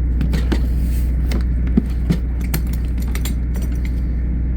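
Clicks, knocks and rattles from a DeWalt 18-volt drill kit being handled and opened, over a steady low rumble.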